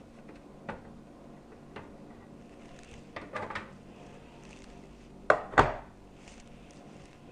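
A kitchen knife cutting zucchini slices in half on a chopping board: a few light taps and clicks, then two sharp knocks of the blade on the board about five seconds in.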